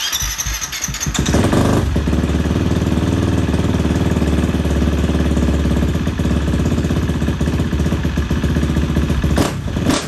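A KTM 350 single-cylinder four-stroke dirt bike engine, big-bored to 365 and breathing through a cut-down FMF exhaust, is electric-started on its stock ECU. It fires at once, builds over about a second and settles into steady running, with one brief sharp pop near the end. The owner finds the bike hard-starting on this stock ECU even when warm.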